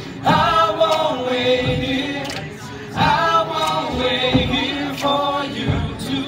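Men's a cappella group singing sustained chords. A new chord swells in at the start and another about three seconds in, over sharp percussive hits.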